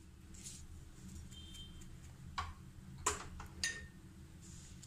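Metal spoon clinking against a glass mixing bowl as mashed potato dough is stirred. There are three sharp clinks with a short ring, a little over half a second apart, in the second half.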